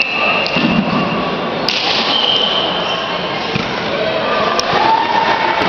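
Echoing sports-hall din: distant voices and scattered thuds of play from around the hall, with a few sharp slaps or clicks, the first about a second and a half in, another near the end.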